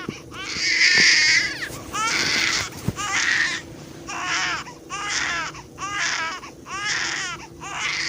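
Baby crying in a string of short wails, roughly one a second with brief catches of breath between them. The longest and loudest wail comes about a second in.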